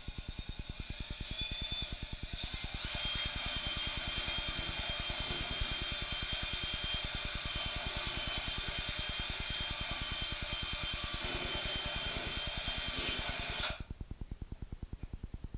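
Drill spinning a Mud n' More MixBall mixer in a bucket of setting-type joint compound (hot mud). The motor whine builds over the first few seconds, holds steady, then cuts off suddenly near the end, over background music with a fast, steady beat.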